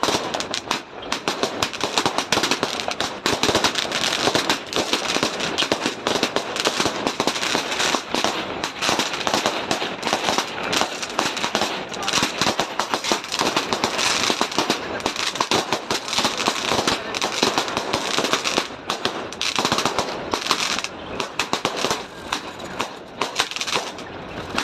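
Firecrackers going off in rapid, unbroken succession, a dense crackle of sharp bangs that eases off right at the end.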